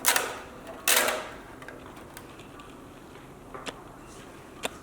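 Plastic handling noise as the plastic face mask is worked off an LED display module: two short scraping bursts near the start and about a second in, then a few light clicks.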